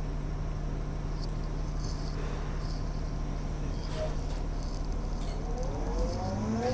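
City bus interior while riding: the bus's steady low drivetrain hum, with light scattered rattles and ticks from the body. Near the end, several squeaky rising tones come in.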